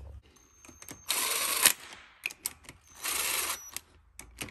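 Cordless power driver on a socket extension spinning in two short bursts about two seconds apart, each with a thin high whine, as it runs down the transmission valve body bolts. Small clicks come between the bursts.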